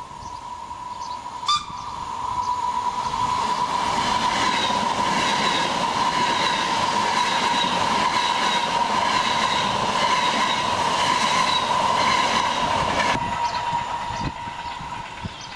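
FS ETR 450 Pendolino electric tilting train approaching and running past at speed. The noise builds, holds with a regular clicking of wheels over the rails, and drops abruptly near the end. A single sharp click comes about a second and a half in.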